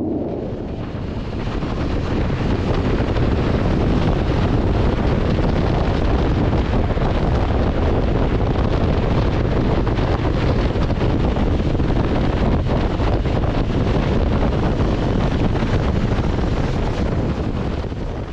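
Wind rushing and buffeting over a motorcycle-mounted camera's microphone while riding at about 55–65 km/h, with road and engine noise of the motorcycle underneath. The steady rush fades out at the end.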